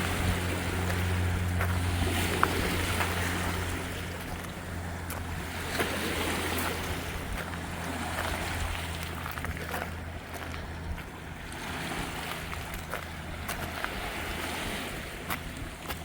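A boat motor running with a steady low hum that fades about eleven seconds in, over wind noise and the wash of water, with a few small clicks.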